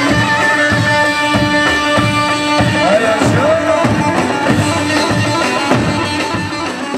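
Halay dance music from a wedding band: a held melody line over a steady drum beat, beginning to fade out at the very end.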